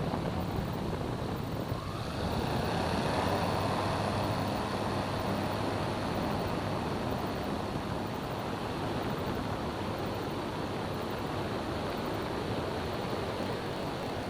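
Light airplane's engine and propeller going to full throttle for the takeoff run: the engine note rises about two seconds in, then holds a steady, loud drone as the plane accelerates and climbs.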